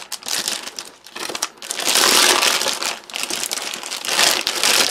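Cellophane wrapping crinkling as it is pulled and peeled off a cardboard box, in uneven spells of rustling, loudest about two seconds in.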